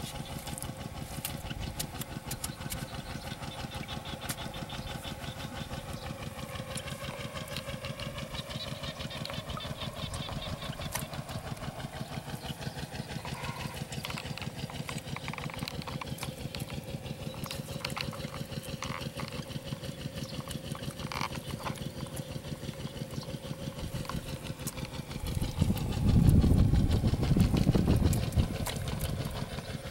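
An engine running steadily with a fast, even pulse. Near the end a louder low rumble comes in for about three seconds.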